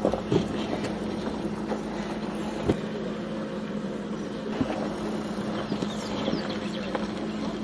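Vehicle engine idling with a steady low hum, with a few short knocks about a third of a second, two and three-quarter seconds and four and a half seconds in.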